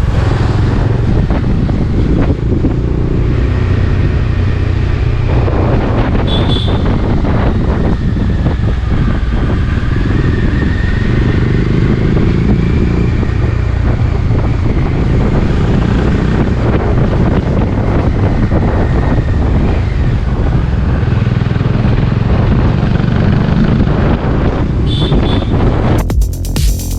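Bajaj Dominar motorcycle underway, its engine running steadily under heavy wind rush on the microphone. Music starts near the end.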